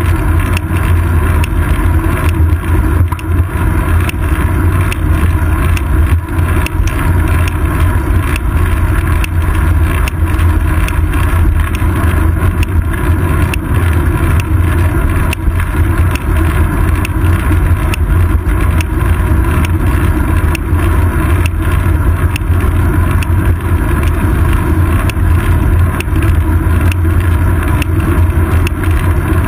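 Steady loud rumble of wind and road vibration picked up by a GoPro Hero 2 clamped to a bicycle's seat post as the bike rolls along asphalt, with many small knocks and rattles running through it.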